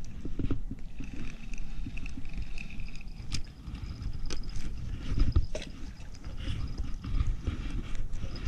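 Wind rumbling on the microphone with the handling noise of a spinning rod, scattered light clicks, and a thin steady high whine over it.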